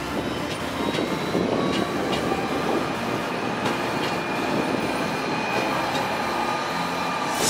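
An Alstom Citadis Dualis tram-train passing on its track: a steady rush of wheels on rail with a faint, thin, steady whine over it and a few light clicks.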